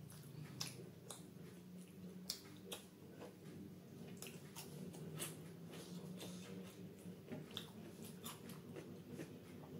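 Close-miked eating: chewing with wet mouth and lip smacks and squelches of fingers in thick butter paneer gravy, an irregular string of sharp wet clicks over a faint steady low hum.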